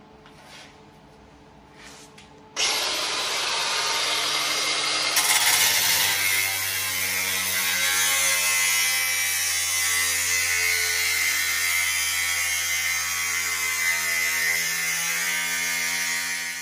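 Milwaukee angle grinder switching on about two and a half seconds in and running with a steady whine. From about five seconds in its disc cuts into the steel plaque, brighter and harsher, until it shuts off near the end.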